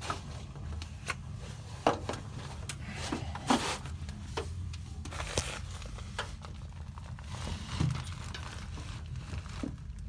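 Rustling and crinkling with scattered knocks and clicks as someone climbs up and handles things, over a low steady hum. The sharpest knocks come about two and three and a half seconds in.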